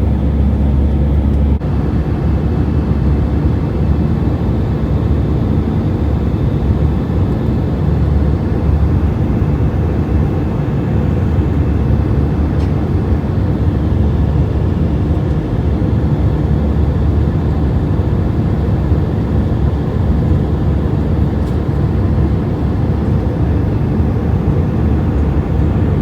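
Airliner cabin noise during the takeoff climb: a steady, loud rumble of engines and airflow. A low steady hum drops out about a second and a half in.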